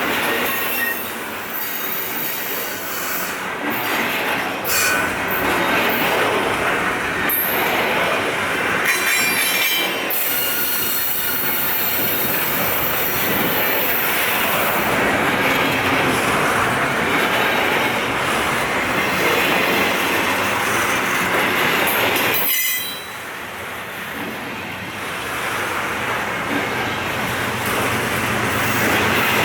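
CN double-stack container train rolling past, wheels rumbling and clicking over the rail joints, with high wheel squeal coming and going. The noise dips suddenly about three quarters of the way through, then builds again.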